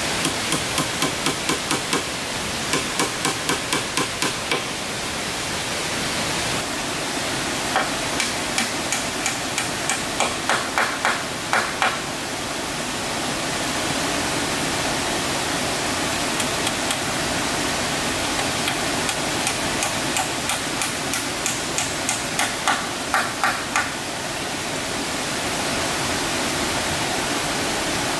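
Hand hammer striking wood in runs of rapid blows, about three a second, the strikes getting louder and ringing a little toward the end of some runs, over a steady background hiss.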